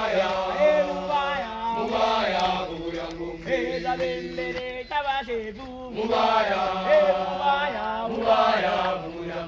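A group of voices singing a chant together in phrases of held notes, with a short lull about halfway through before the next phrase.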